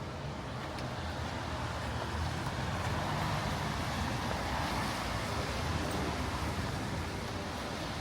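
A car driving past on a wet city street, its tyre hiss swelling to a peak a few seconds in and then fading, over a steady low traffic rumble.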